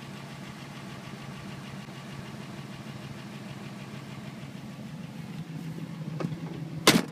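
A 1955 Ford Crown Victoria's engine idling steadily. Just before the end comes a single loud sharp bang, with the car's door going from open to shut.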